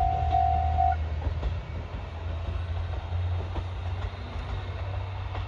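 Electronic level-crossing warning bell chiming in an even repeated rhythm, stopping about a second in. Under it a KiHa E130 series diesel railcar pulling away runs with a low engine rumble and scattered wheel clicks over the rails.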